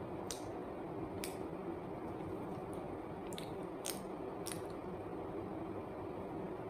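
Squeeze-bottle and wet mouth sounds as chocolate sauce is squeezed onto a peeled banana that is then licked and bitten: about five short sharp clicks and squishes over a steady background hiss.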